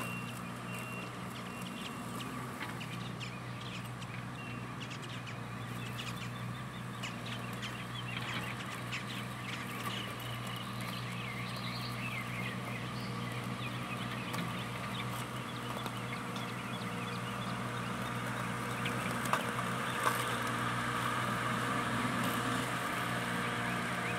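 Steady low engine hum of a loader working in the distance, with birds chirping over it. Over the last few seconds a higher whir from the Luba robot lawn mower's electric drive and blade grows louder as the mower comes closer.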